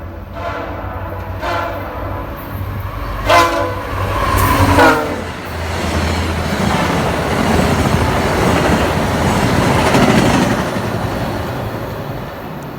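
VIA Rail F40PH diesel locomotive's multi-note air horn sounding several short blasts. The last, loudest blast drops in pitch as the locomotive passes. Then comes the rushing rumble and wheel clatter of the passenger train running by, swelling and then easing off near the end.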